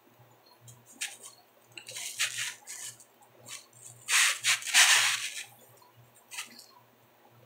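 Biting into a slice of pizza close to the microphone: a few short crackly noises about two seconds in, then a louder, longer pair about four to five seconds in as the slice is bitten.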